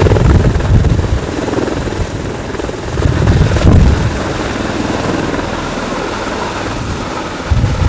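CV-22 Osprey tilt-rotors hovering and flying low in helicopter mode: loud proprotor thudding over turbine and rotor wash noise, swelling about three seconds in and then settling steadier as the nearer aircraft climbs away. Downwash gusts buffet the microphone.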